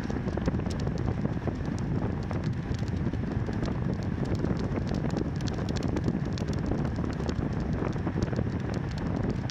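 Steady wind rushing over the microphone of a cyclist's camera while riding a road bicycle, over tyre noise from the road, with scattered faint clicks.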